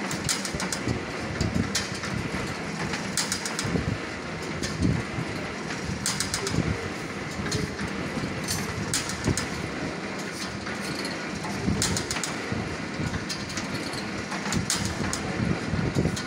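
Jute mill machinery running: a steady mechanical din with irregular sharp clacks and clicks over it.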